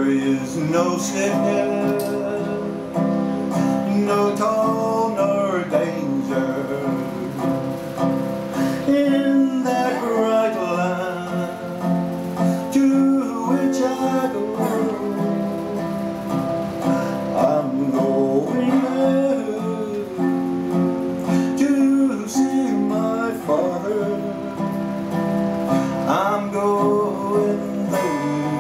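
A man singing a slow folk song, accompanying himself on an acoustic guitar held flat and played lap-style, with long held, ringing notes.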